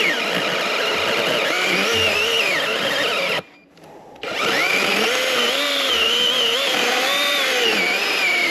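Masterforce 80-volt battery chainsaw running under load as it cuts pine, its motor whine wavering in pitch. It cuts out suddenly for under a second about three and a half seconds in, then runs again.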